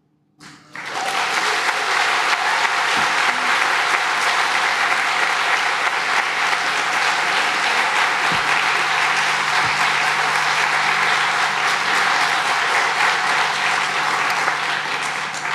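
Audience applauding steadily, starting about a second in and cutting off abruptly near the end.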